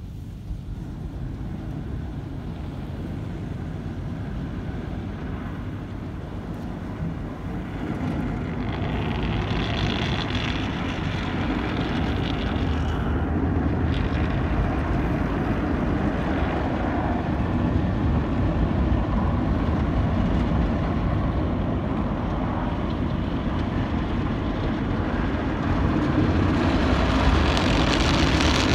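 Automatic tunnel car wash heard from inside the car riding through it: a steady rumbling hiss of the wash machinery that grows louder over the first several seconds, with brighter, hissier stretches about a third of the way in and again near the end.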